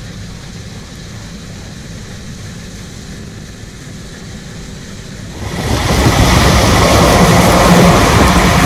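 Low, steady engine rumble of a New Holland CX combine harvester and a tractor working together while grain is unloaded. About five and a half seconds in, it jumps suddenly to the loud, steady running noise of the combine close by: engine and threshing gear, with a constant hum.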